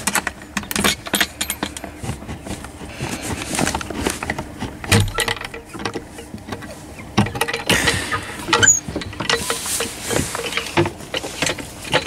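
Irregular clicks, knocks and rattles of handling at a plywood coop door with a metal hook latch and barrel bolt, with rustling between them.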